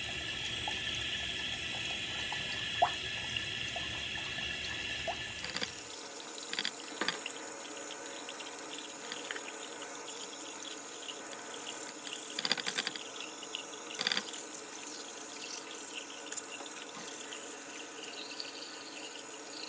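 Bathroom sink tap running steadily into the basin, its deep rumble dropping away about six seconds in, with a few short clicks later on.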